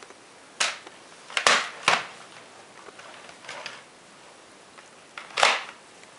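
Handling noise from a canister vacuum cleaner's wand and floor nozzle: five or so sharp clicks and knocks, the loudest near the end.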